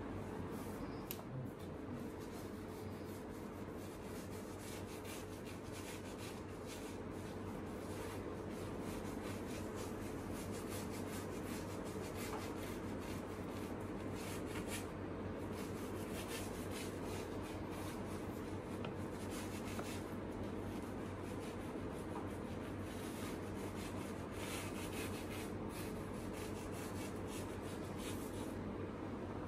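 Wide flat paintbrush scrubbing paint across a large canvas in repeated, irregular scratchy strokes, over a steady low hum.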